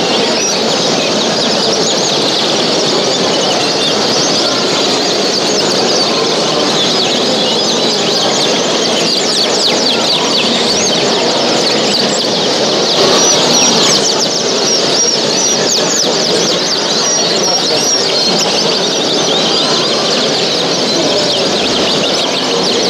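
A hall full of caged show birds chirping and singing at once: a dense, continuous chatter of many short, high chirps and trills over a steady low din.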